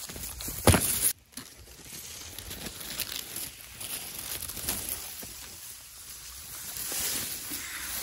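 Ripe rice stalks and leaves rustling as they brush against the microphone, with one loud brushing knock a little under a second in.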